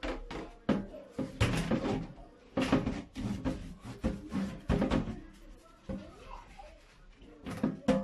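Refrigerator shelves knocking and clattering against a stainless-steel sink as they are scrubbed clean, a run of irregular knocks that thins out after about five seconds.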